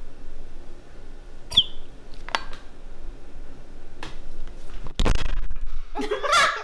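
Honey squeezed from a plastic squeeze bottle into a glass measuring cup: scattered small clicks and a short squeak from the bottle. About five seconds in there is a louder second of handling noise.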